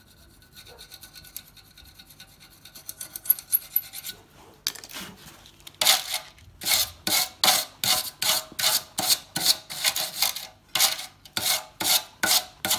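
A polymer-bristle hand brush scrubbed back and forth over the corrugated stainless-steel bellows of a ship's diesel exhaust compensator, cleaning off carbon deposits before welding. Faint light scraping comes first; from about five seconds in there are loud rasping strokes, two to three a second.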